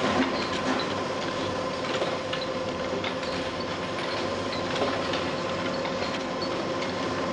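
Ouzo bottling line running: machinery with a steady hum, and glass bottles clinking and rattling along the conveyor.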